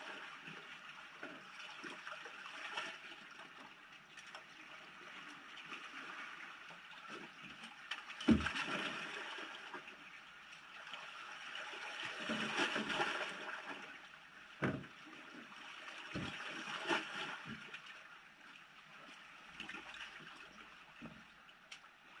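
Small sea waves washing and lapping over shoreline rocks, swelling and ebbing every few seconds. A few dull knocks come from gear being handled in a plastic sit-on-top kayak; the loudest is about eight seconds in.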